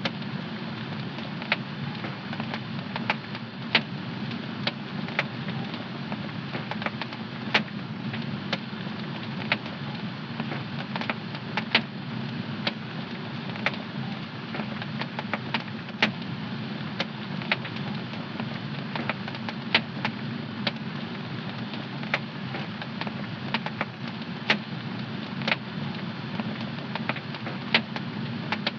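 Wood fire burning in a home fireplace: a steady low rumble of flames with sharp, irregular crackles and pops, about one or two a second.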